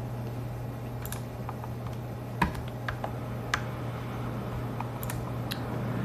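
A steady low hum with scattered light clicks and taps, irregularly spaced, the sharpest about two and a half seconds in.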